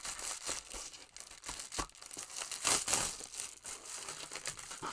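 Plastic mailer bag being torn open by hand and crinkled, in irregular rips and crackles, the loudest one about halfway through.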